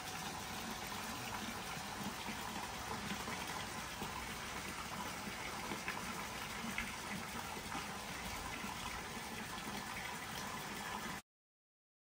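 Steady splashing of a small water spout pouring into an outdoor pool. It stops abruptly near the end.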